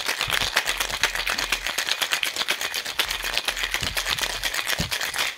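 Ice cubes rattling rapidly inside a Boston shaker (metal tin with a glass) during a hard shake with ice to chill the cocktail mix. The rattle stops suddenly just before the end.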